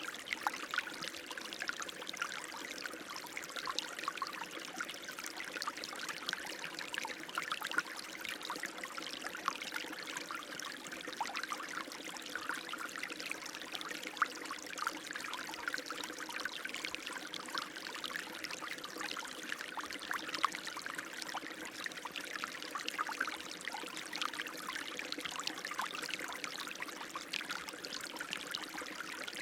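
Running water flowing steadily, with a dense patter of small splashes and trickles.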